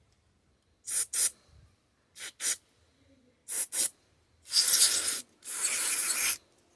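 Aerosol can of carburetor cleaner spraying: three pairs of short quick puffs, then two longer sprays near the end, flushing the passages of a chainsaw carburetor.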